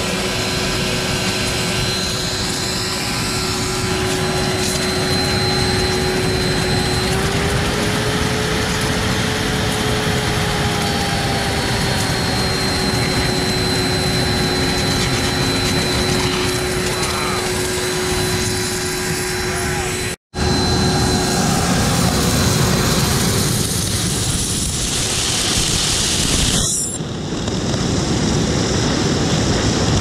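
Gas ring burner under a mono-tube steam boiler running flat out with a steady jet-like roar, while superheated steam hisses out of a brass nozzle, a steady whistle riding over the noise. The sound breaks off for an instant about twenty seconds in and the hiss changes character near the end.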